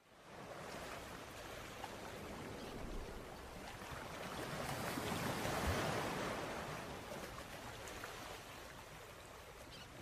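A soft rushing noise like surf or wind, the opening effect of a reggae track, swelling to a peak about halfway through and then fading away.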